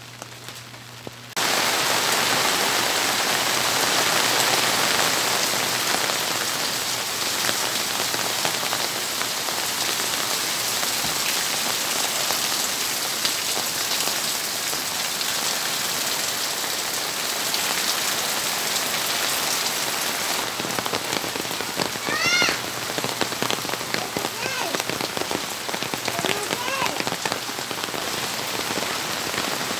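Heavy rain falling on corrugated metal roofing and sheeting, with water pouring off the roof edge; it starts abruptly about a second in. A short high rising call cuts through the rain about two-thirds of the way in, with a fainter one a few seconds later.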